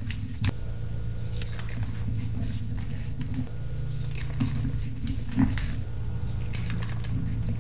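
Reformed gym chalk crushed and crumbled by hand: irregular dry crackles and snaps, a sharper one about half a second in, over a steady low hum.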